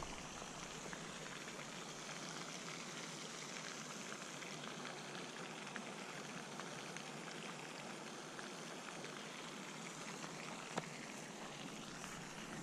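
Faint steady hiss of outdoor background noise, with a few faint clicks, the clearest about eleven seconds in.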